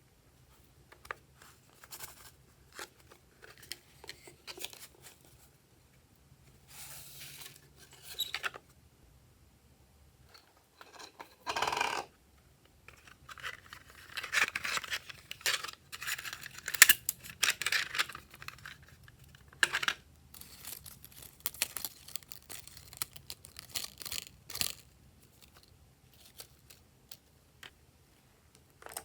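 Glossy slime being stretched, pressed and pulled apart by hand, with irregular sticky crackles, pops and tearing sounds. They come thicker and louder through the middle and later part.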